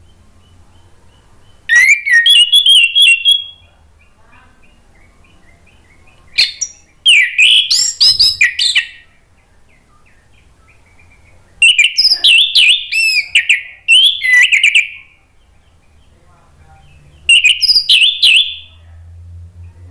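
Orange-headed thrush singing: four loud bursts of fast, varied whistled phrases, each lasting about two to three seconds, with pauses of a few seconds between them.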